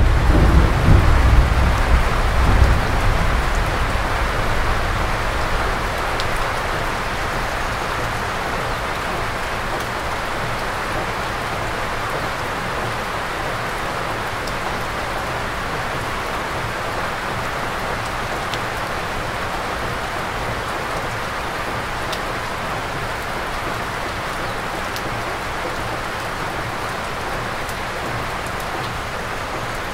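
Steady heavy rain falling on forest trees. A low thunder rumble dies away over the first few seconds.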